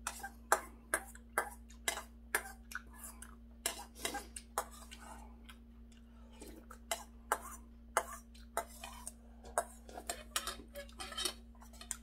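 Metal spoon clinking and scraping against a stainless steel bowl in many irregular, sharp clinks as the last of the soup is scooped out.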